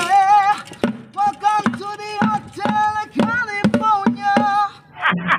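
A high voice singing a melody over improvised percussion: sticks beating plastic paint buckets and a trowel tapped on a plate, in a steady beat of about two to three strikes a second. Near the end the singing stops and the beating turns to a rougher clatter.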